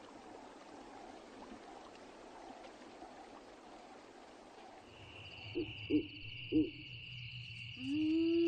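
Hyenas calling: three short low hoots, then a longer call that rises and holds. Under them a steady high insect trill sets in about halfway.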